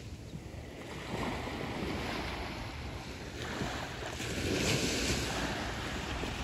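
Small, gentle waves breaking and washing up a sandy beach, the surf swelling twice, loudest about four to five seconds in, with wind rumbling on the microphone.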